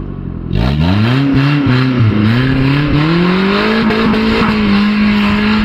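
Modified off-road 4x4's engine revving hard under load as it climbs a steep dirt mound. The revs rise about half a second in, dip briefly, then climb again and hold high.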